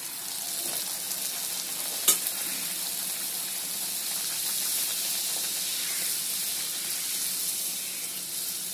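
Poori deep-frying in hot oil in a kadai: a steady sizzle that starts as the rolled dough goes into the oil. A single sharp click about two seconds in.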